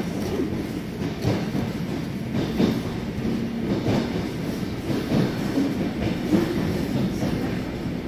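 Russian suburban electric train (elektrichka) heard from inside the carriage while under way: a steady rumble of the running gear, with the wheels knocking over rail joints every second or so.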